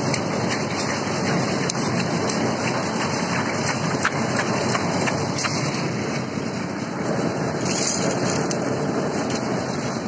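Half-bag concrete mixer running, its drum churning the concrete: a steady rushing noise with scattered light clicks.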